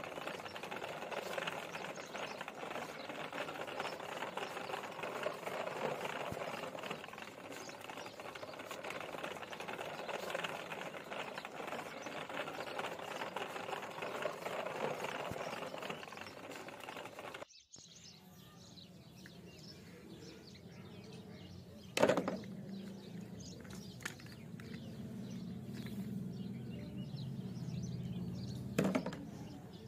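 Plastic toy dump truck pulled on a string, its plastic wheels rattling steadily over rough concrete. The rattle stops abruptly partway through, and what follows is quieter: a low hum and two sharp clacks of plastic toy figures being handled.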